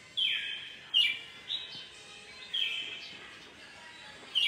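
Red-whiskered bulbul singing: short bright whistled phrases with pauses between them, about five in all, the first one falling in pitch.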